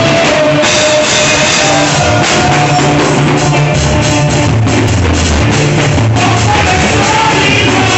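Loud live African praise music: a church choir and lead singer singing into microphones over a drum kit and keyboard.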